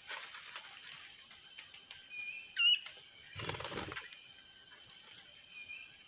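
A bird gives a short whistled call with quick pitch turns a little over two seconds in, and a fainter call near the end. About three and a half seconds in there is a brief rustle in the undergrowth.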